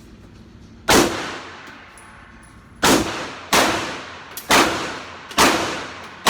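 9mm pistol fired at a range: a single shot about a second in, then a quicker string of four shots and a sixth at the very end, each shot ringing out in a long echoing decay.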